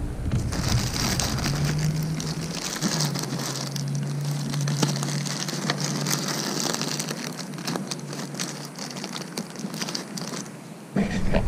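Thin plastic bag crinkling and rustling in dense crackly bursts as it is wrapped over a motorcycle's open carburetor air intake.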